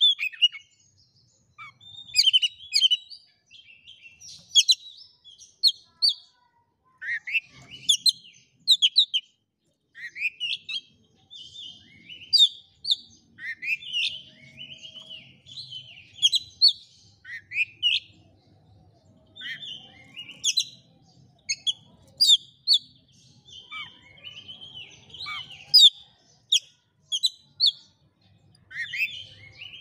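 Oriental magpie-robin singing a long, varied song full of mimicry. It comes in short phrases of whistles, rising and falling sweeps and quick chirps, with brief pauses between them.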